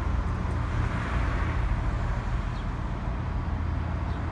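Steady low rumble with outdoor background noise, with no distinct knocks or clicks.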